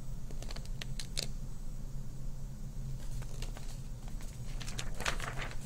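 Steady low electrical hum in a small room, with a few faint clicks and rustles of a hardcover picture book being handled, about a second in and again near the end.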